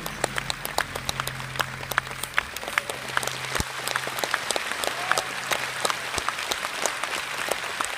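Concert audience applauding, many separate hand claps, with a low steady hum from the stage fading out about halfway through.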